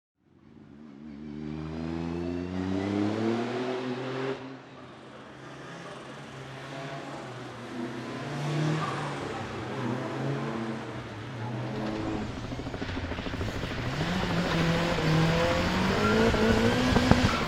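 Ford Escort RS1700T's turbocharged 1.8-litre four-cylinder Cosworth engine accelerating hard, its pitch rising for about four seconds before dropping suddenly as the throttle lifts. The revs then rise and fall again, climbing louder near the end.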